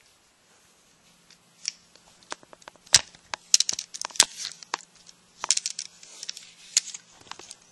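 Hands handling a plastic Transformers toy figure: a run of sharp plastic clicks and crinkly rustles, irregular and starting about a second and a half in.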